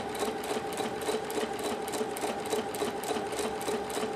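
Husqvarna Viking Platinum Plus sewing machine running steadily with a rapid, even rhythm of needle strokes, sewing its automatic mending stitch back and forth over a tear.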